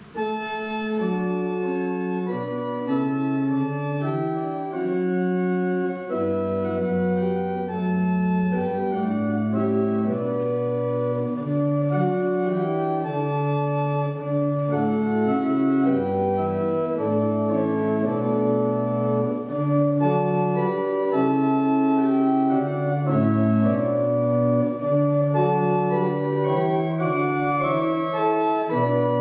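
Church organ playing slow, sustained chords in a hymn-like progression, starting right after a prayer; deeper bass notes join about six seconds in.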